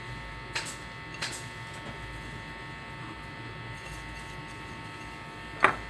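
Steady electrical buzz, with a few faint clicks and two sharp knocks near the end.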